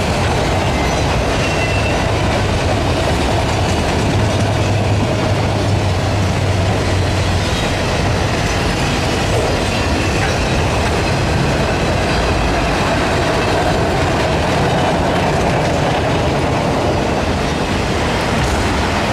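Norfolk Southern autorack freight cars rolling past close by: a loud, steady rumble of steel wheels on the rails.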